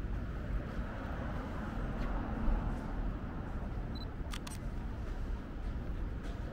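Night-time city street ambience: a steady low hum of distant traffic, with a short high beep about four seconds in and a couple of sharp clicks just after it.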